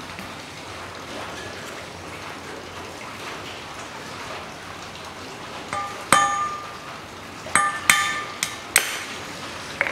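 Hammer blows on a Toyota 1KR engine's steel crankshaft: about six sharp metallic strikes, each ringing briefly, starting a little past halfway. They knock off a main bearing shell that seized onto the crankshaft journal.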